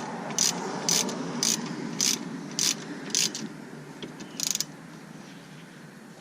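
Ratchet wrench being worked back and forth to snug down a brake pad retaining pin: a sharp click about twice a second, stopping about three and a half seconds in, then a quick run of clicks about a second later.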